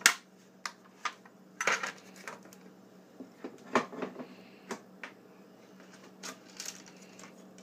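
Scattered short clicks and clinks, a dozen or so, of small metal wrenches and a hard plastic cover being handled against the plastic body of a portable wet tile saw, with a sharp knock at the very start as the loudest.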